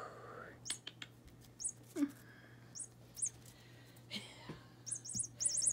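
High-pitched electronic bird chirps from a cat wand toy: single chirps every second or so, then a quick run of them near the end. A short falling voice-like sound comes about two seconds in.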